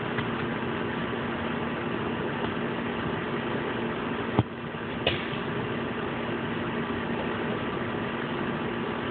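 A steady mechanical hum, such as a machine or engine running, with a sharp knock about four and a half seconds in, a brief dip in level, and a smaller click half a second later.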